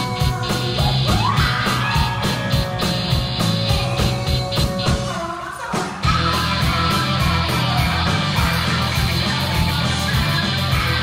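Rock band playing live: drums, bass guitar and keyboard, with a woman singing into a handheld microphone. The band thins out briefly about five seconds in, then comes back in at full volume about six seconds in.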